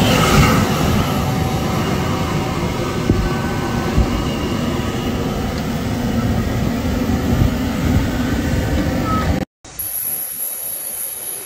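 Private jet's engines running close by, a loud steady roar with heavy rumble. Near the end it cuts off suddenly and gives way to a quieter steady high whine.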